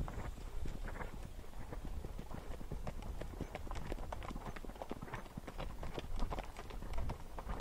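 Hoofbeats of a ridden gaited horse on a dirt-and-gravel trail: a quick, irregular run of clops, several a second.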